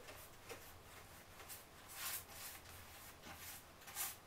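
Faint swishes of a paintbrush stroking paint along a skirting-board trim, a few soft strokes, the clearest near the end.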